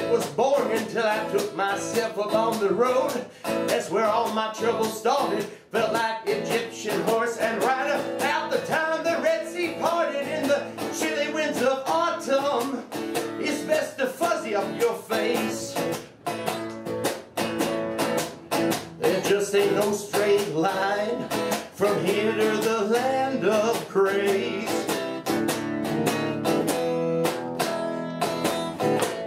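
Solo performance on a strummed semi-hollow electric guitar, with a man singing and playing a harmonica held in a neck rack. The music cuts off at the very end.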